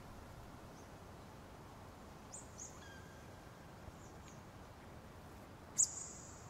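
Quiet steady hiss with a few short, very high bird-like chirps, the loudest one coming near the end, part of an ambient piece.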